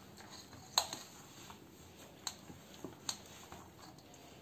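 Hand kneading crumbly rice-flour chakli dough in a steel bowl: faint working of the dough with a few sharp knocks against the bowl, the loudest about a second in.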